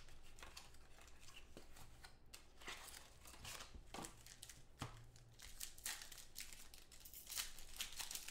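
Foil wrappers of 2014 Select football trading-card packs being torn open and crumpled by hand: a run of short crinkling rips and crackles, some sharper than others, over a faint low hum.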